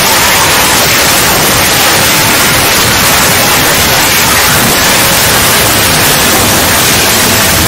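Loud, steady static hiss, like white noise, with no change in level.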